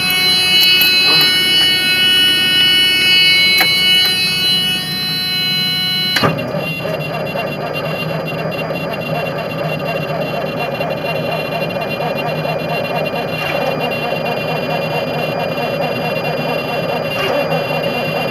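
Detroit Diesel Series 60 truck engine running steadily at high idle during warm-up after a cold start. Over it, the cab's warning buzzer sounds steadily for about the first six seconds, then stops; such a buzzer is typical of low air pressure before the air system has built up.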